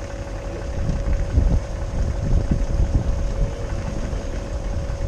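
Pickup truck engine idling with a steady low hum, while wind buffets the microphone in gusts.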